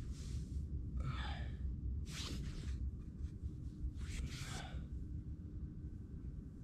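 A man breathing out in four short, breathy sighs, the last one about four seconds in, over a steady low rumble.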